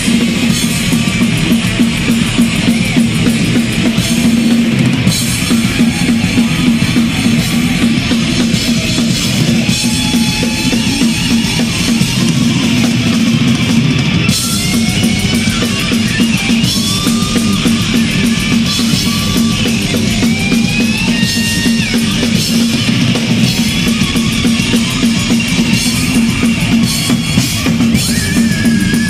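Thrash metal band playing at full volume: a fast, busy drum kit with bass drums and cymbals under heavily distorted guitars, with high sliding lead notes gliding over the top from about ten seconds in.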